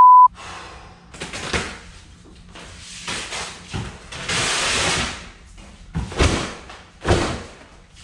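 Large sheet of vinyl car-wrap film being handled, pulled and stretched over a car bumper: irregular crackling, rustling rushes of noise, the longest about four seconds in, with a few slaps or thumps near the end. A short electronic beep right at the start.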